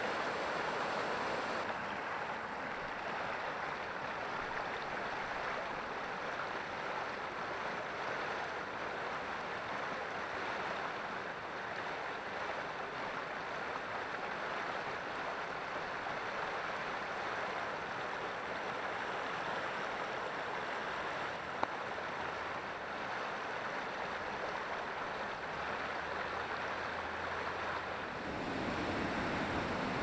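Steady rush of water spilling over a small stepped rock-ledge waterfall and running over the stones of a shallow creek. Near the end a louder, deeper rush of a bigger waterfall takes over. There is one short click a little past the middle.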